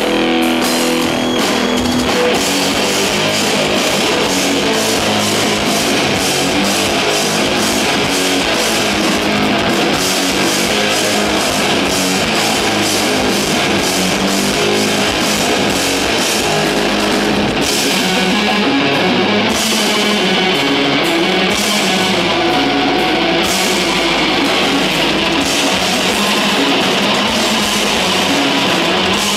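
Live rock band playing loud: electric guitar, electric bass and drum kit together, without pause.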